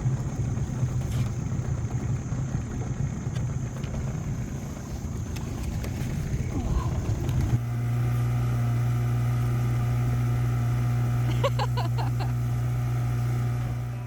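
An engine running steadily with a strong low hum. Partway through, the sound changes abruptly to a smoother, louder, even drone. Near the end comes a quick run of short squeaks.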